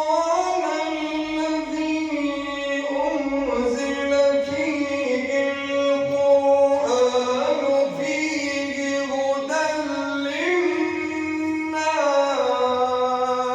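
A man reciting the Quran in a melodic tajweed style, drawing out long held notes with ornamented glides between them.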